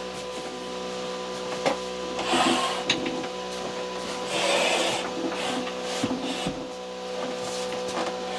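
Wooden shelf boards being slid and set into a 2x4 kitchenette frame: two spells of wood scraping on wood, about two seconds in and again around four and a half seconds, with a few sharp knocks of board on frame, over a steady hum.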